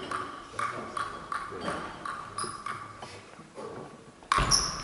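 Table tennis ball bounced repeatedly on the table by the server, sharp ringing clicks about three a second. Near the end comes a louder sudden hit as play starts.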